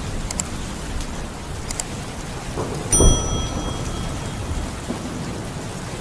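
Heavy rain falling steadily, with a low rumble beneath it. About halfway through there is a sudden knock with a short ringing tone that fades within a second.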